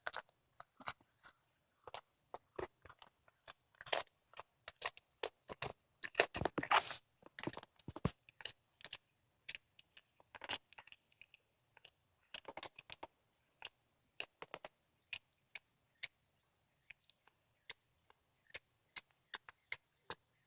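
A cat chewing and crunching on a squirrel it has caught: many irregular crunches and bites, thickest and loudest a few seconds in, sparser toward the end.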